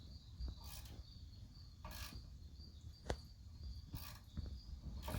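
Sharp metallic clicks about once a second, from a wrench working on the auger motor's bolts, over a steady faint high-pitched buzz and a low hum.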